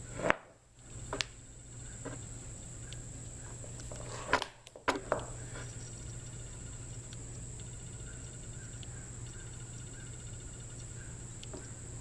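A few sharp clicks and knocks from a small metal hand tool being handled and worked, a couple near the start and a cluster about four seconds in, over a steady low hum and a high whine.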